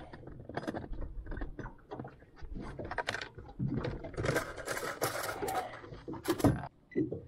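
Fishing rod and reel being handled and rigged: a run of irregular clicks, ticks and small rattles, busier about four to five and a half seconds in.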